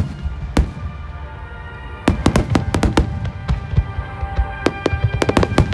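Aerial fireworks bursting with sharp bangs, a few at first, then a rapid dense string of bangs from about two seconds in, over music playing.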